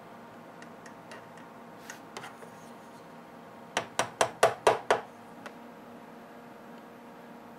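Six quick, sharp taps, about five a second, of a tool on a plastic model building kit, with a few faint handling clicks before them.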